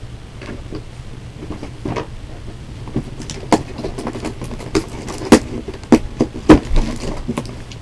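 Toy packaging handled inside a cardboard doll box: irregular crackling and clicking of plastic and cardboard as the ties holding the doll are worked loose, with a few sharper clacks in the second half. A low steady hum runs underneath.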